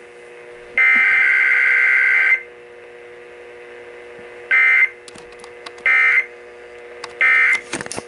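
Emergency Alert System digital data tones from a radio's speaker. One long, harsh, screechy burst comes about a second in, followed by three short bursts spaced about 1.3 seconds apart. The long burst is typical of a SAME header and the short triple of the end-of-message code that closes a weekly test.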